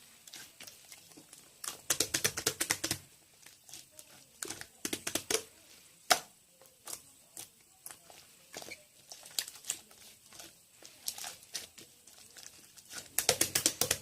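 Bursts of rapid light clicking, several runs a few seconds apart with scattered single clicks between them.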